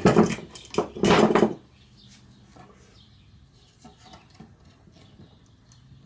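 Hammer striking a wooden block to knock a cabinet door's stile loose from its rails: two loud bouts of sharp wooden knocking in the first second and a half, then a few faint taps.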